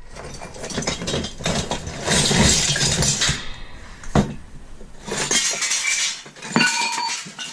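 Small pieces of scrap metal clattering and clinking as they are rummaged through in a bin. A dense rattle for the first few seconds, a single knock, then separate clinks with a short ringing tone near the end.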